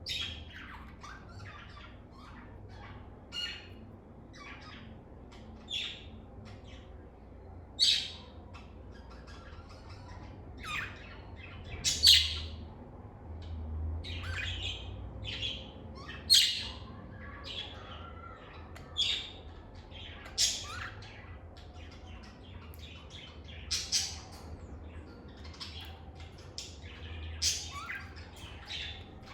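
Lovebirds chirping: short, sharp, shrill calls at irregular intervals, a few of them much louder, over a faint low hum.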